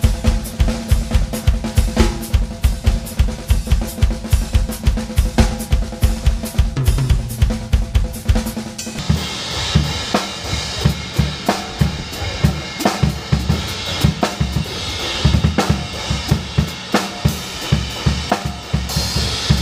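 Drum kit played hard and fast: first a rapid run of bass drum strokes under snare and steady ringing tones, then, about nine seconds in, a change to a Trick drum kit played with looser drum hits and a lot of cymbal wash.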